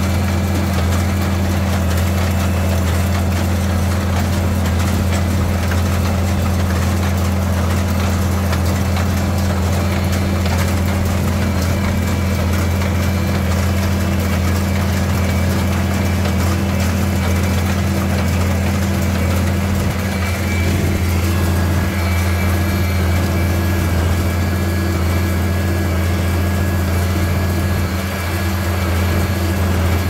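Farmall 656 tractor engine running steadily at a constant speed, with a deep, even drone.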